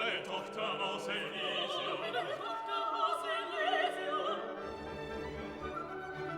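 Operatic classical music: a singer with wide vibrato over an orchestra. The voice stops about four and a half seconds in and the orchestra carries on.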